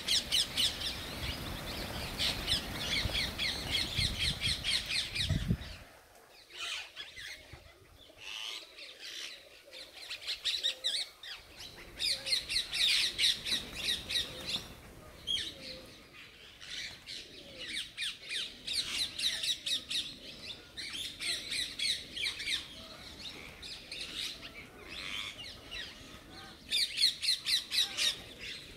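A flock of birds calling in bouts of fast, harsh, high-pitched chattering that come and go over the whole stretch. A low rumble runs under the calls for the first five seconds or so, then stops.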